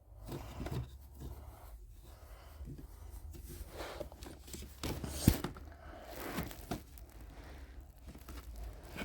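Faint rustling, crinkling and light knocking of objects being handled, with one sharper knock about five seconds in.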